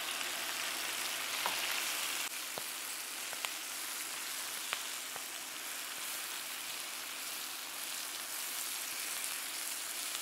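Fresh spinach and cherry tomatoes frying in hot oil in a skillet, a steady sizzle as the leaves wilt, with a few sharp ticks.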